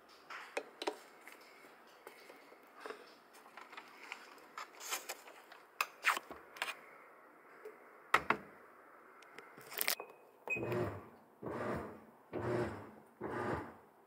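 Light plastic clicks and knocks from handling the washing machine's lid and detergent cap, then a short beep about ten seconds in, after which a TECO 7 kg top-loading washing machine starts its cycle with rhythmic swishing pulses, about one every 0.85 s, as the wash drum works back and forth.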